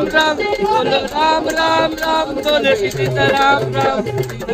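A man singing a melody into a handheld microphone, with long, held notes.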